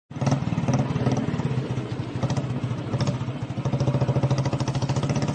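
Motorcycle engine idling with a steady, rapid, even thump.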